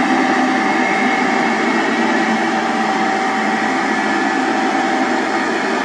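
A small electric motor running steadily, a constant whirring hum with a few fixed whining tones over a rushing hiss.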